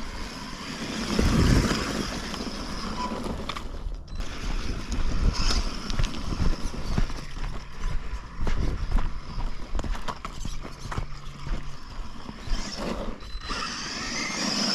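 Brushless-powered 1/10-scale RC truck running over a dirt and gravel trail: electric motor and gear whine coming and going with the throttle, and the tyres crunching and clicking over gravel and leaves. The rebuilt rear diff is driving with no slipping or grinding.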